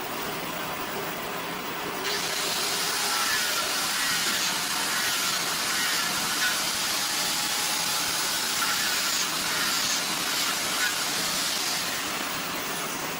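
Workshop machine noise with a steady hiss that grows louder about two seconds in and eases off near the end.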